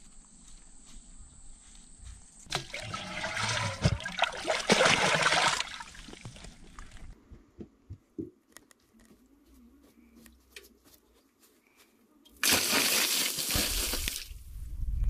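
Water poured from a clay pot splashing onto the floor of an empty pool, in two gushes: one of about three seconds starting about two and a half seconds in, and a shorter one near the end.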